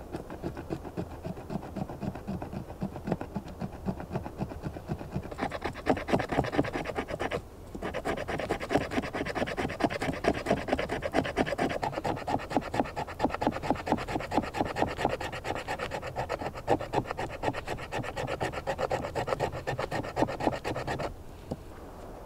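Knife blade shaving thin curls off a dry wooden stick braced on a stone, making tinder for a fire: rapid repeated scraping strokes, with a short break about seven seconds in, stopping shortly before the end.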